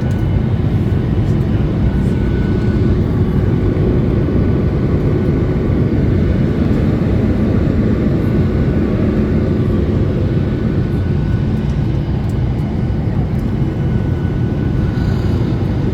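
Steady airliner cabin noise on the descent toward landing: a continuous low rumble of engines and air rushing past the fuselage, with a few faint steady hums.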